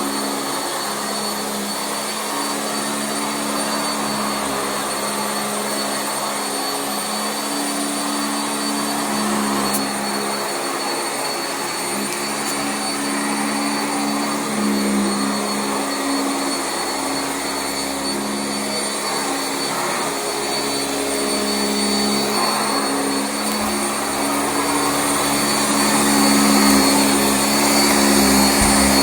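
Sanitaire SC679J commercial upright vacuum running continuously: a steady motor hum with a high whine, its pitch wavering slightly and growing a little louder near the end.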